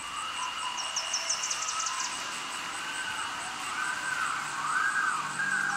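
Electronic ambient soundtrack. A synth tone swells up and down in pitch about once a second over a steady high tone and a faint high pulse. A burst of quick rising chirps comes near the start, and a low hum comes in near the end.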